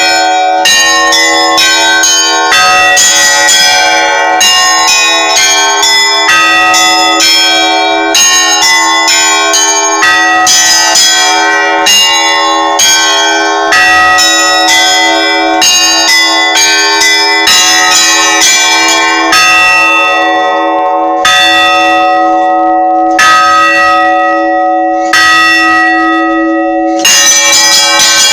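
Orthodox church bells ringing a festal peal (zvon): quick strikes on the small bells ring out over a steady hum of a larger bell. The strikes thin out with short gaps about two-thirds of the way in, then return at full density near the end.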